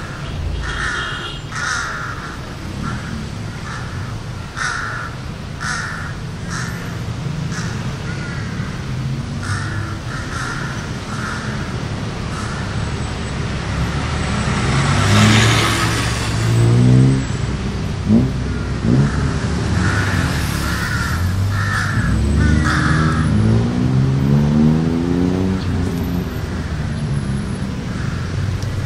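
City road traffic running steadily, with vehicles accelerating twice, their engine pitch rising through the gears, the louder pass about halfway through. Crows caw repeatedly over the traffic, often through the first third and again briefly past the middle.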